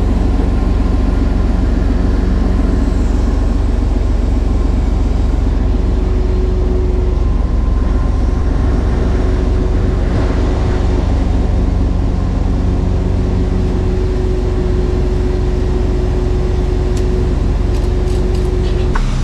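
Mercedes-Benz Actros truck's engine and the hydraulics of its truck-mounted loader crane running under load while lifting a rack. A steady loud drone with a higher hum that drops out briefly and comes back a few times.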